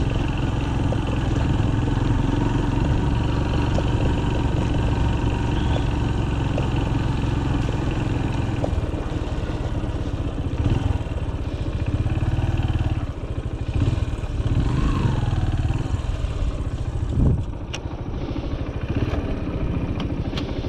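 Farm motorbike engine running steadily, with a few light clicks and knocks near the end.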